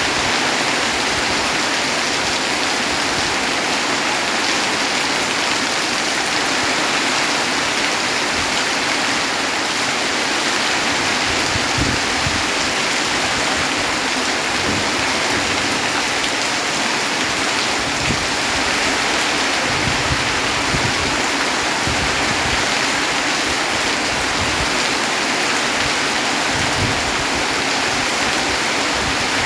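Heavy rain falling steadily: a dense, even hiss of drops that holds the same all through.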